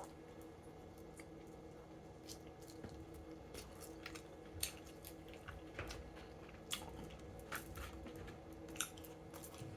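Faint chewing and mouth sounds from eating chicken wings: scattered soft wet clicks and smacks, with a few louder ones, over a low steady hum.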